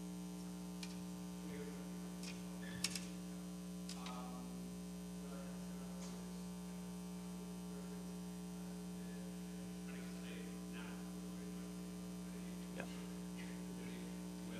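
Steady electrical mains hum in the sound system, with a few faint sharp clicks, the loudest about three seconds in, and faint distant voices.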